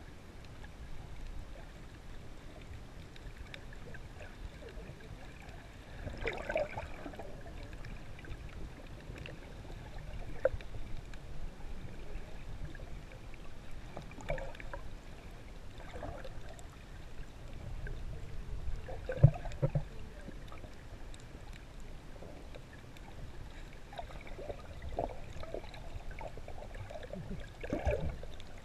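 Muffled underwater sound heard through a GoPro's waterproof housing: a steady low rumble of moving water with scattered short knocks, the loudest about 19 seconds in.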